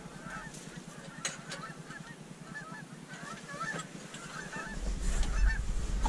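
A flock of geese honking, many short calls overlapping. The calling grows louder near the end as a low rumble comes in.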